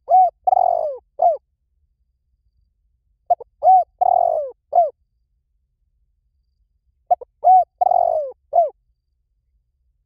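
Spotted dove cooing its call three times, about every three and a half seconds. Each phrase is a few short coos followed by a longer coo that falls in pitch, then one more short coo.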